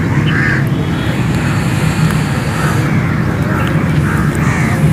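Outdoor ambience: a steady low rumble of traffic, with crows cawing every second or so.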